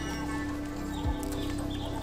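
Background music: one long held note, with a deep drum hit about a second in.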